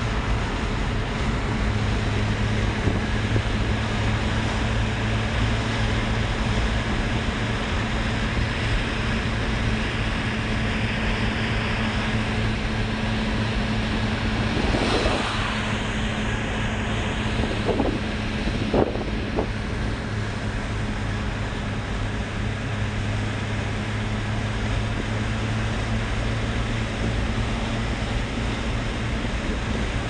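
Steady road and engine noise heard inside a car cruising at highway speed, with a low drone throughout. About halfway through it swells briefly as another car passes close alongside, and a few seconds later there are two or three short knocks.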